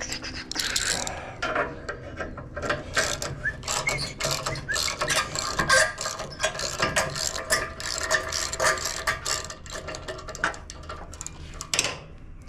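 Ratchet socket wrench clicking in quick runs as it is swung back and forth, running down a bolt.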